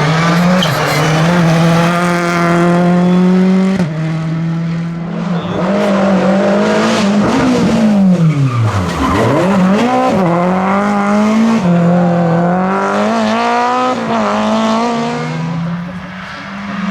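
Rally car engine revving hard through repeated gear changes, with tyres squealing as it slides, passing close by about halfway through.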